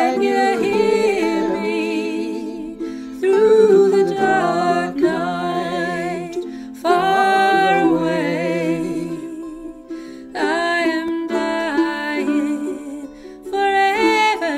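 Ukulele music without words: ukulele chords under a wavering lead melody, in phrases that start afresh about every three and a half seconds.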